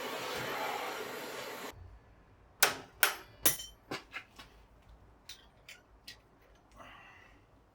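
A steady rushing hiss that cuts off suddenly, followed by a series of sharp knocks and clicks: three loud ones close together, then fainter scattered ones, as of tools and metal parts being handled on a workbench.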